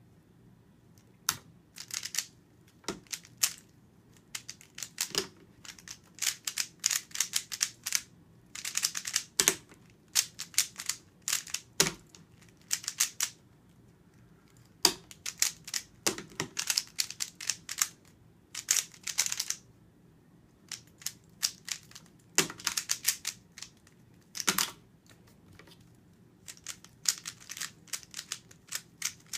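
3x3 speed cube being turned one-handed: quick runs of clicking plastic layer turns in bursts, with short pauses between them.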